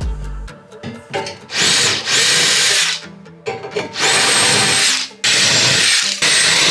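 Metabo cordless drill running in about five bursts of roughly a second each, with short pauses between them, drilling holes in the wooden bed of the hull.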